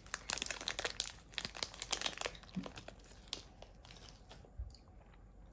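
Snack packaging crinkling and being torn open. The crackling is dense for about two seconds, then thins out, with a soft low knock a little before the end.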